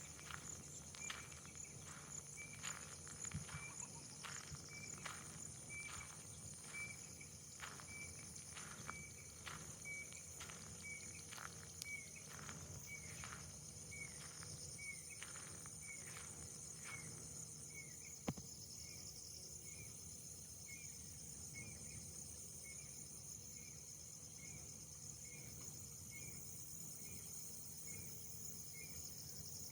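Faint wild outdoor ambience: a steady high-pitched insect drone with a short chirp repeating about every two-thirds of a second. Through the first half a run of soft knocks or snaps keeps a similar pace, then stops, and one sharper click follows shortly after.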